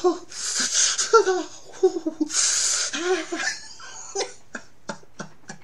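A man laughing hard, with long wheezing in-breaths between voiced laughs, dying down into a few short breathy chuckles near the end.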